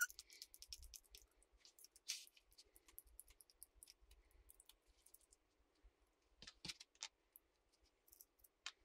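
Faint, scattered clicks and ticks of hand tools and small parts of an RC car's center differential being handled during disassembly, with a few sharper clicks about two-thirds of the way through and one more near the end.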